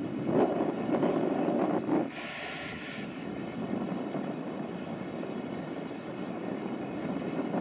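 Small harbour tug's diesel engine droning as it pushes through choppy water, with wind gusting on the microphone in the first two seconds and a brief rush of spray about two seconds in.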